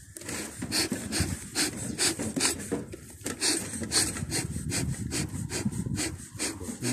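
A metal hive tool scraping and prying along the wooden frames of a beehive, metal rasping on wax-coated wood in quick repeated strokes, about three a second.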